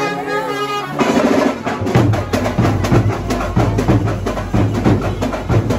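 A procession band starts playing about a second in: loud, fast drumming with a heavy bass beat. Voices are heard just before it starts.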